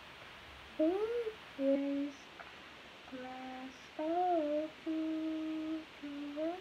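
A young woman humming a slow tune: a series of held notes, some gliding up or bending, with short breaks between them, beginning about a second in.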